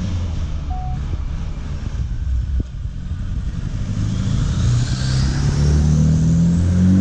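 Car engine running, then accelerating from about four seconds in, its pitch rising steadily.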